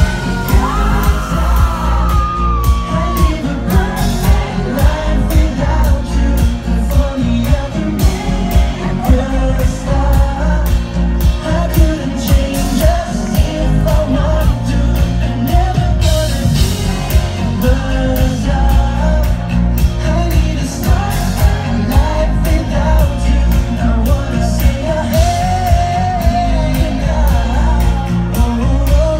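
Live pop-rock band playing: a male lead vocalist singing into a microphone over drums, bass, electric guitar and acoustic guitar, with a steady beat throughout.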